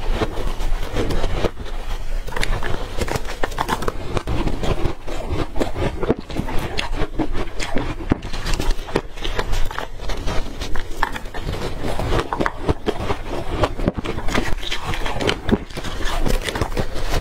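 Close-up crunching of ice being bitten, one crisp crack after another with crackling in between, in quick irregular succession.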